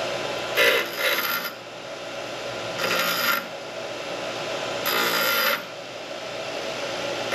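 Bench grinder running steadily, with a small piece of metal pressed against the wheel three times in short grinding bursts, each under a second.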